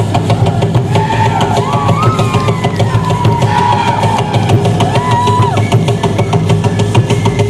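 Loud live music driven by drums, with bass drum and snare keeping a dense, steady beat and a pitched line sliding up and down above it.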